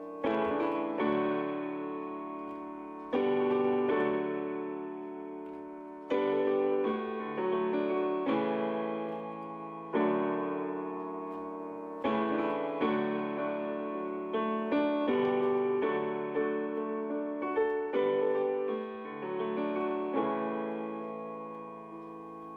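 Piano music: chords struck and left to ring and fade, a few seconds apart at first, with quicker notes through the middle.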